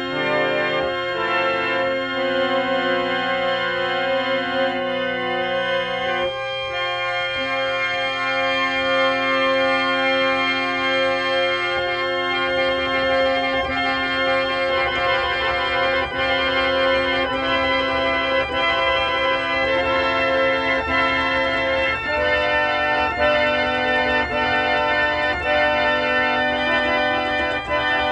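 Organ music: slow, sustained chords held for several seconds each, with no percussion.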